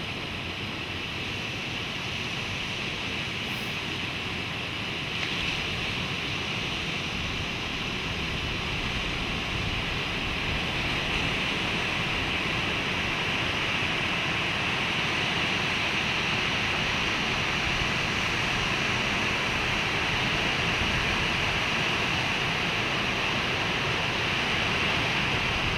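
Ocean surf breaking on a beach: a steady, even rush of waves and whitewater.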